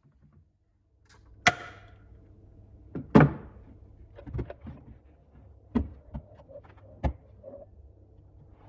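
A handful of sharp knocks and clinks of metal parts being handled, about five in all. The first has a brief metallic ring.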